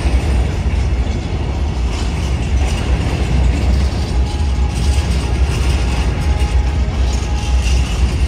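Freight train of Tadns covered hopper wagons rolling past close by: a steady rumble and clatter of steel wheels on the rails.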